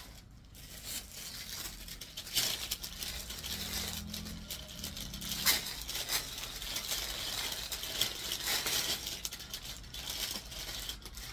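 Clothes and their plastic packaging being handled, rustling and crinkling with many small sharp crackles.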